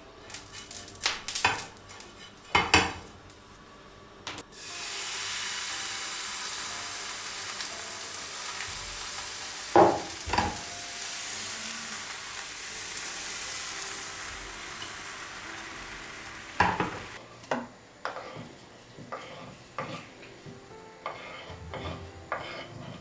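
Kitchen work: light knocks and clinks of utensils and dishes, then a steady sizzle from a hot pan that starts suddenly a few seconds in and runs about twelve seconds, with a couple of knocks in the middle, before more utensil clinks near the end.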